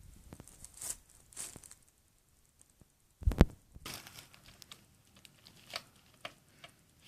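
Handling noise from working on a disassembled Xbox 360: light clicks and scrapes of a screwdriver and plastic parts, as a screw is tried with the wrong size screwdriver. A single loud thump comes about three seconds in.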